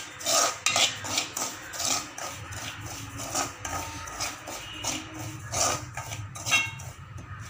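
Metal spoon scraping and clinking against a metal kadai in quick, uneven strokes as it stirs dry rice rava, dry-roasting it until it gives off its aroma.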